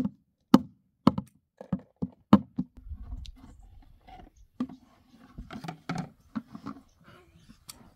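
Sharp knocks and taps on plastic, about two a second for the first couple of seconds, then softer, scattered clattering as a plastic bucket and its lid are handled.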